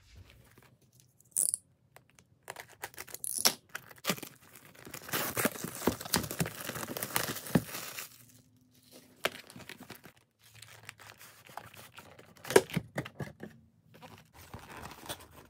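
Cellophane shrink wrap being torn and crumpled off a sealed cardboard trading-card box, with a dense run of crackling about five seconds in. Scattered taps and clicks of the box being handled, the sharpest a little after twelve seconds.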